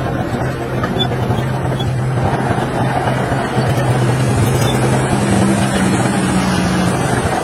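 Diesel engine of heavy construction machinery running steadily, with a second, higher engine tone joining about five seconds in.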